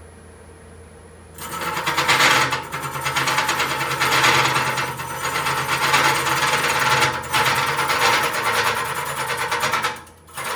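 Wood lathe's hollowing tool, fitted with a carbide cutter, cutting the inside of a spinning wood blank. The motor hums quietly at first, then the cut sets in about a second and a half in as a loud, rapidly pulsing scraping. It eases briefly between passes and stops near the end.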